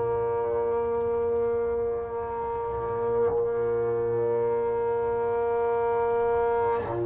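Recorded Irish folk music: a low steady drone under long held notes from a wind or brass instrument, the melody moving to a new note every one to three seconds.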